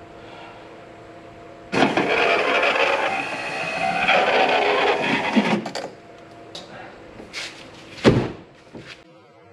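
Toyota 80 Series LandCruiser driver's-door power window motor running for about four seconds, winding the glass down. A few small knocks follow, then one sharp clunk near the end.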